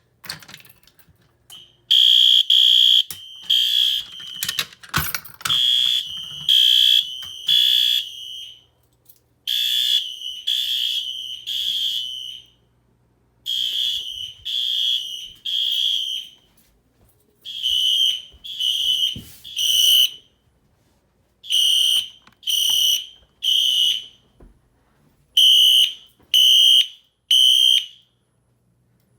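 Fire alarm horns, including Wheelock Exceeder remote horns set to high volume code 3, sound in the temporal-three evacuation pattern: three high-pitched beeps, a pause, then again. They start about two seconds in, overlapping out of step at first, then settle into clean groups of three.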